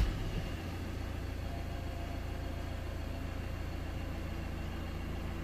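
A 2013 Ford Transit's turbo diesel engine idling steadily at about 1,000 rpm, just after being started.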